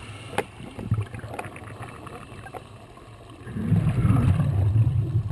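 Scuba diver exhaling through a regulator: a loud burst of bubbling begins about three and a half seconds in, after quieter muffled underwater noise with a few sharp clicks.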